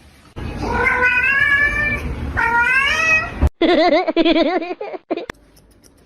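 A pet animal yowling in two long calls that rise in pitch and hold, then a quavering, wobbling call that stops about five seconds in.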